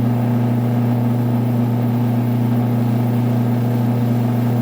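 Small AC electric motor running steadily after being started through a push-button-controlled relay, giving a constant low hum.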